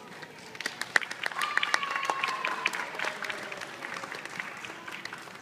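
Audience applauding, the clapping starting about half a second in, strongest in the first couple of seconds and then thinning out, with a brief voice calling out over it.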